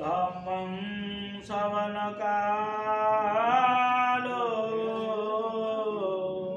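A man chanting a Buddhist chant, drawing the syllables out in long held notes with short breaks between them.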